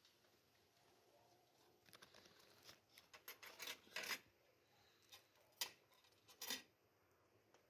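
Faint clinks and scrapes of forks on china plates while eating, in a cluster about two to four seconds in, one sharp click a little later, and a few more near the end.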